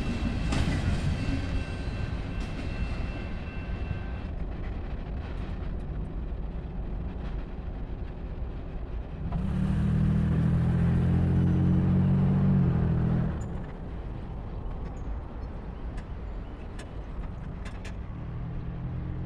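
The last of a freight train's rumble fading away, then a road vehicle's engine running loud and steady for about four seconds before dropping back to traffic noise.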